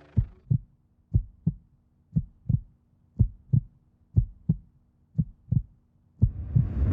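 Heartbeat sound effect: six slow lub-dub double thumps, about one a second. A rising whoosh builds near the end.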